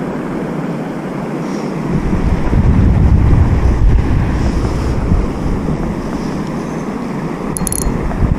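Wind buffeting the microphone, with a stronger gust from about two to five seconds in. A brief high clicking comes near the end.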